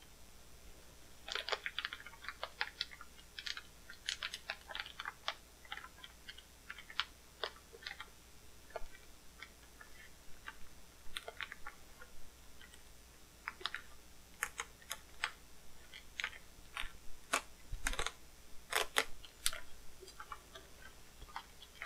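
Black plastic wrapping being cut with a knife and pulled apart: irregular sharp clicks and crackles, coming in flurries and busiest in the second half.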